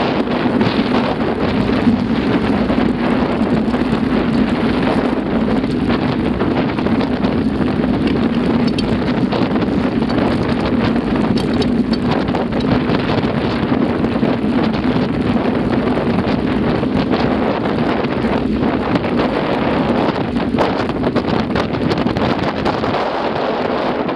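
Wind rushing over the microphone of a mountain bike moving along a gravel track, steady throughout, with the tyres crunching over loose stones as a scatter of small clicks.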